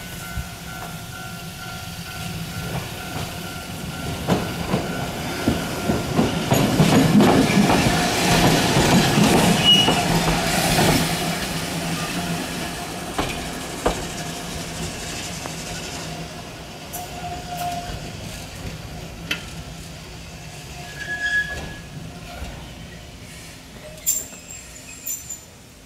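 Purple Keifuku Randen single-car electric tram passing close by. It grows louder to its loudest about seven to eleven seconds in, with clicks from the wheels, then fades away.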